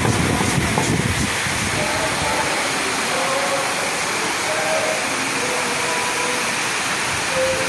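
Waterfall rushing steadily: a loud, even hiss, with a low rumble in the first second or so.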